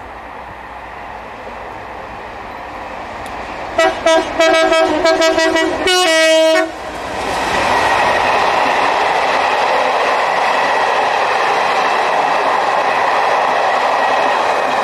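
A train horn sounds in a quick run of short toots and then one longer blast. The passenger train then passes with a steady rumble of wheels on the rails, with an EWS Class 67 diesel locomotive at the end of the train going by near the end.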